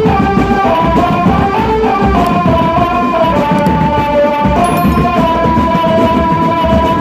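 Drum band playing: dense marching drums under a melody of held notes that step from one pitch to the next.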